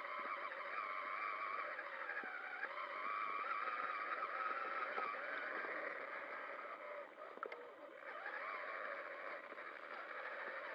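Traxxas Summit RC monster truck's electric motor and gear drivetrain whining, the pitch rising and falling as the throttle changes, with a few small knocks. The whine drops away briefly about seven seconds in, then picks up again.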